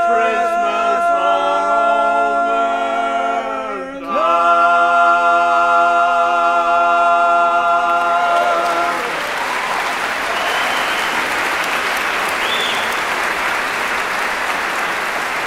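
Male a cappella vocal quartet holding a sustained chord that breaks off about four seconds in, then a new held final chord that ends about nine seconds in. Audience applause comes in as the chord ends and continues steadily.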